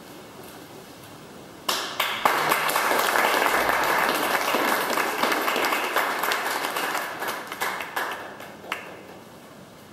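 Audience applauding: clapping starts suddenly about two seconds in, stays dense for several seconds and dies away near the end.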